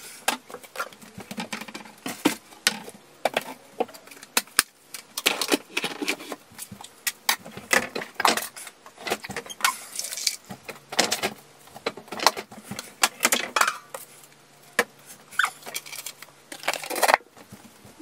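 Dishes and kitchen utensils clinking and clattering as they are handled and put away, a quick irregular run of knocks and clicks. A faint low hum sits underneath for a few seconds from about halfway through.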